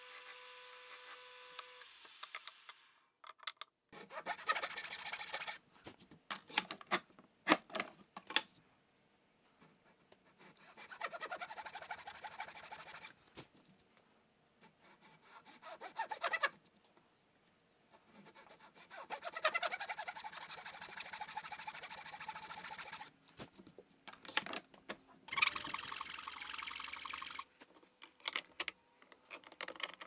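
A disc sander's motor hums steadily and stops about two seconds in. Then a Japanese pull saw cuts through a small wooden block in six bouts of rapid rasping strokes, each lasting a second or more, with short pauses between.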